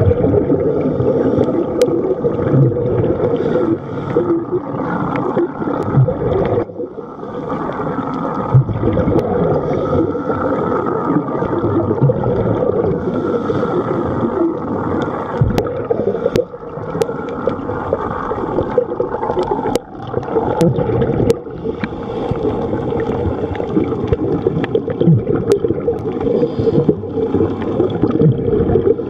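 Muffled underwater bubbling and gurgling from a scuba diver's regulator, dense and continuous, with a few brief lulls.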